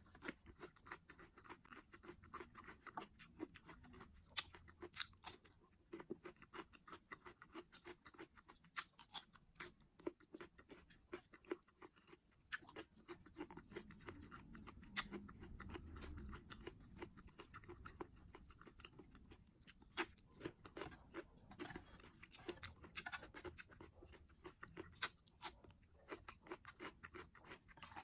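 Close-up mukbang eating sounds: a person chewing food, with many short sharp mouth clicks and smacks in quick succession.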